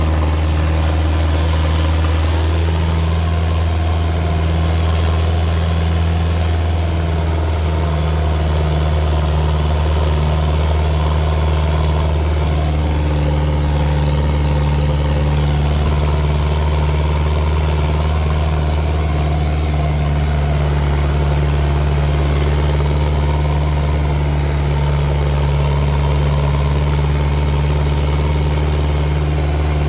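Fiat New Holland L85 tractor's turbocharged diesel engine running steadily at an even speed, with small shifts in its note a couple of times.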